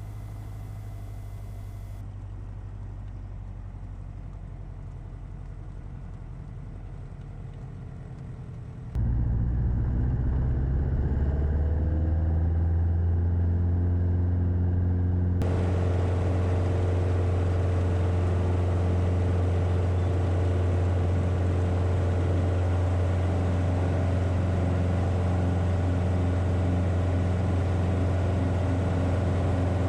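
Cessna 177RG Cardinal's engine and propeller heard inside the cockpit: a steady low hum, then about nine seconds in the throttle comes up for takeoff and the engine note rises and gets much louder, settling into a steady full-power drone.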